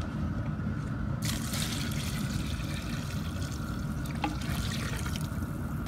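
Water poured from a plastic pitcher into a large cast-iron pot of browned chicken and sausage, splashing onto the meat. The pouring starts about a second in and thins out near the end, over a steady low rumble.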